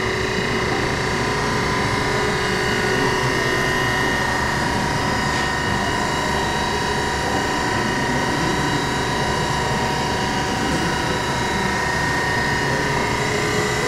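Brown & Sharpe 618 Micromaster hydraulic surface grinder running, its spindle motor and freshly rebuilt hydraulic pump giving a steady hum with several steady whining tones while the hydraulic table traverses.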